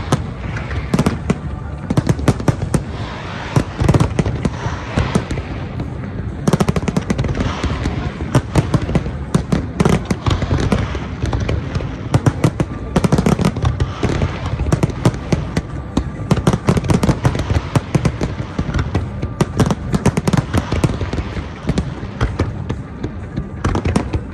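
Large aerial fireworks display: shells bursting in quick succession, a dense run of bangs and crackling with no pause.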